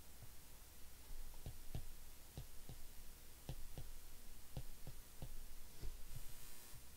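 Stylus tapping and clicking against a tablet screen while writing numbers by hand: about a dozen short, irregular taps.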